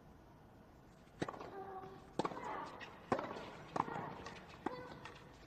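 Tennis ball struck by rackets in a doubles rally on a hard court: five sharp hits about a second apart, starting about a second in, with short pitched sounds after the hits.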